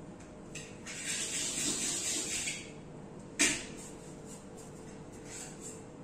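Cookie dough balls being rolled in granulated sugar in a metal pan: a gritty rustling scrape for about two seconds, then one sharp tap about halfway through, with softer rustles later. A faint steady hum runs underneath.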